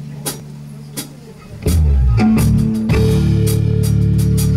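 Live Berber blues band playing on oud, violin, bass guitar and drum kit. After a few sparse drum hits, the full band comes in loudly about a second and a half in, with held low notes and regular cymbal strokes.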